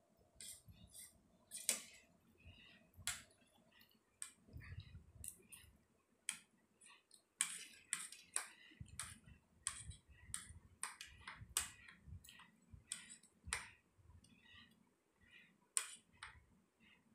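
Spoons and forks clinking and scraping on dinner plates as two people eat, a string of irregular short clicks.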